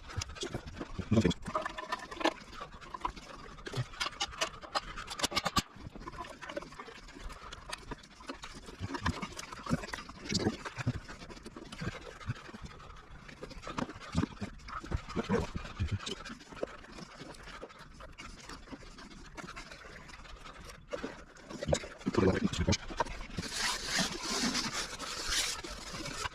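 Workshop work noises: scattered clicks, knocks and clinks of tools and parts being handled, with a burst of hissing near the end.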